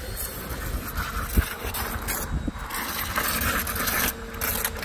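Greenworks pressure washer spraying a jet of water into a plastic bucket of car-wash soap, frothing up the suds: a steady, hissing rush of water.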